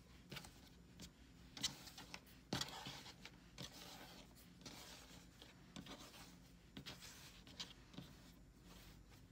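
Faint rubbing and rustling of fleece strips as hands draw them through a square knot and pull them tight on a cutting mat, with a few soft taps.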